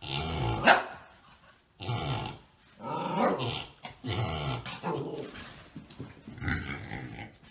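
Young husky play-growling and barking in about five grumbly, bending calls, with a sharp yip near the start.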